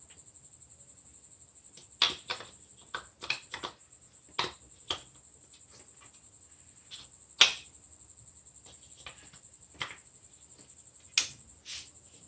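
Irregular light clicks and knocks, a dozen or so at uneven spacing, the loudest about seven and a half seconds in, over a faint steady high hiss.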